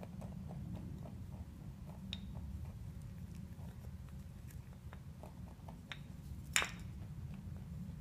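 Angora rabbit nibbling and nosing at a wooden treat puzzle: faint quick clicks over a low hum, with one sharp knock about two-thirds of the way through.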